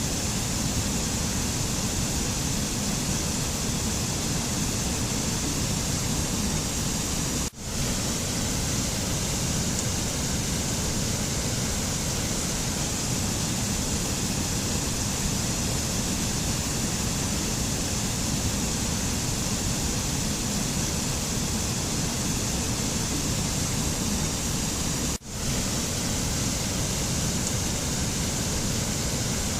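Steady, even rushing noise of a mountain nature ambience, with no music or tones in it; it cuts out for an instant twice.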